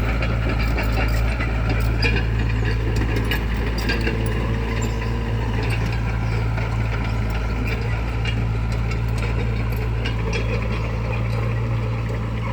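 Excavator's diesel engine running steadily, with a wavering higher whine and scattered clicks and scrapes that are thickest in the first few seconds and again near the end.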